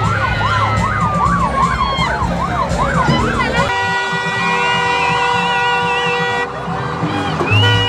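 A siren yelping, its pitch sweeping rapidly up and down about two to three times a second over crowd chatter. It cuts off about four seconds in, and steady held electronic music tones with a warbling high note take over.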